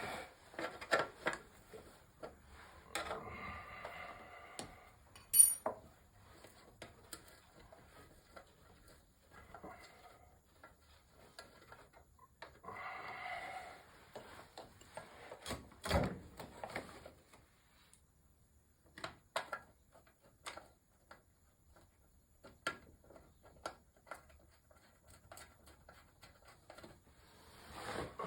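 Hand tools and metal parts being handled while working on an engine: scattered clicks and knocks, short stretches of rubbing, a sharp ringing metal clink about five seconds in and a heavier knock about sixteen seconds in.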